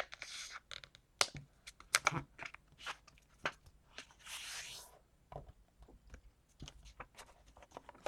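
Sheet of craft paper being folded corner to corner and creased by hand: crisp crackles and taps, with a longer sliding rub about four seconds in as the crease is pressed flat.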